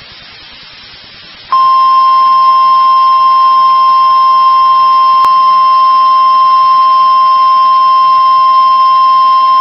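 Emergency alert attention tone: one loud, steady, unbroken tone, the NOAA Weather Radio 1050 Hz warning alarm. It starts about a second and a half in after faint hiss and signals that a severe thunderstorm warning is about to be read.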